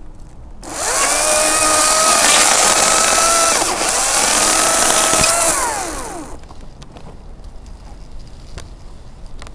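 Makita 40V cordless chainsaw running at full speed for about five seconds, its electric motor giving a steady whine under the noise of the chain cutting into the wood of the tree stem. Near the end the whine falls away as the trigger is released and the saw winds down.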